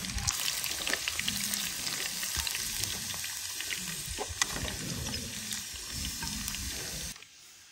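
Stuffed bulgur meatballs deep-frying in a pot of hot oil, a steady sizzle full of small crackles and pops. It cuts off abruptly about seven seconds in.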